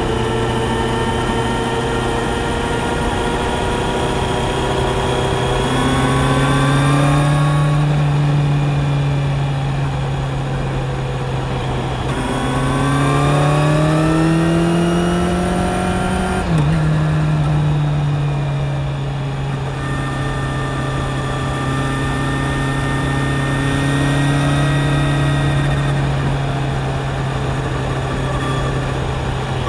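Kawasaki Z900's inline-four engine heard from the rider's seat, the revs climbing twice under acceleration. About sixteen seconds in there is a quick upshift, where the pitch breaks and drops, and then the engine runs at a steady cruise with a slight rise and fall in revs.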